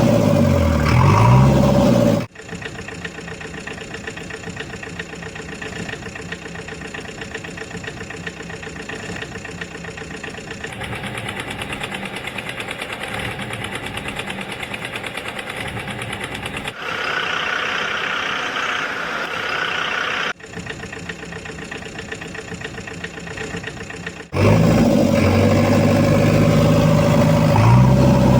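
Vehicle engine running, loud for the first two seconds and again from near the end. Between those, quieter engine and machine sounds come in several sections that start and stop abruptly.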